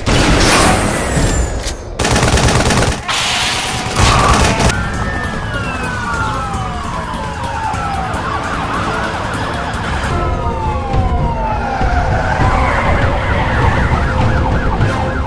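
Loud crashing noise for the first few seconds, then long falling tones, then a police car siren wailing in fast up-and-down sweeps.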